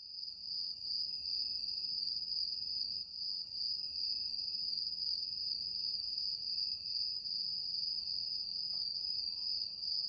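Insects trilling: one continuous, steady, high-pitched trill over faint outdoor background noise.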